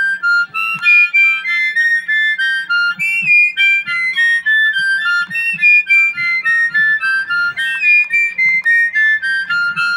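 Two harmonicas played together in harmony, a quick blues melody of short notes stepping down and up in parallel.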